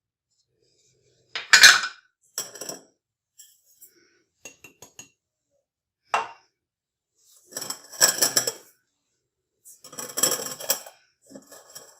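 Kitchen pots and utensils clinking and clattering in several short bouts, with a few lighter knocks between, as cookware is handled and set up for a water-bath (bain-marie).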